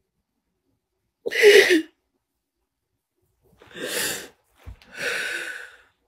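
A woman crying: three sobbing gasps, the first about a second in and the loudest, the other two softer and close together near the end, with a brief low bump just before the last.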